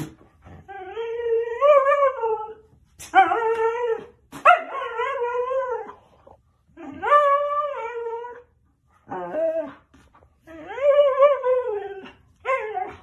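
Siberian husky 'talking': a run of about seven drawn-out, wavering howl-like whines, each up to a couple of seconds long, with short pauses between them.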